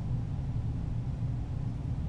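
Steady low rumble with no gunshots or impacts.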